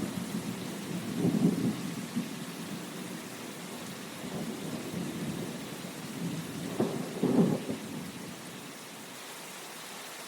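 Steady rain with low rumbling swells, strongest about a second in and again around seven seconds, fading somewhat toward the end.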